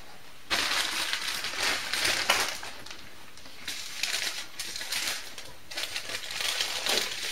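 White paper bakery bag being handled and opened, its paper rustling and crinkling in three spells, the first starting about half a second in.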